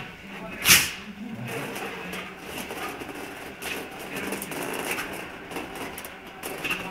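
A Tibetan terrier and a border collie play-wrestling on a raised cot-style dog bed: steady scuffling and rustling of paws and bodies on the fabric and frame. A short, loud burst of noise comes about a second in.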